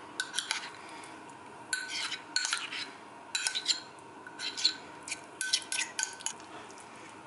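A spoon scraping and clinking against the inside of a bowl in about six short bursts, scraping thick pesto out onto spaghetti.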